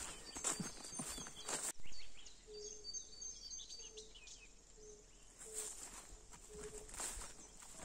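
Footsteps on a dirt track, stopping about two seconds in after a louder step. Then high bird chirps and a short, low call repeated about twice a second, with a couple more steps near the end.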